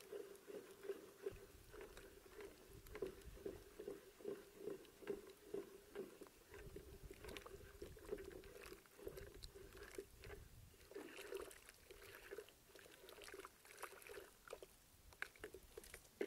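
A wooden stick stirring chalk slurry in a plastic bucket: faint, rhythmic sloshing and scraping at about two strokes a second as the powder and water are mixed before moulding.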